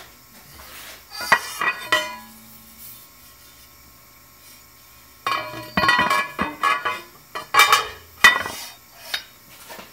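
Metal clanks and clinks of a 15 series 8020 aluminum extrusion being handled in a steel machine vise as the part is flipped over: a short cluster of sharp knocks with a brief ring about a second in, then a longer run of knocks and clinks from about five to eight seconds in.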